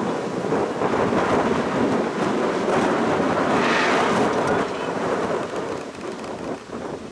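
Wind gusting across the microphone, a loud rushing that swells to a peak about halfway through and eases off near the end.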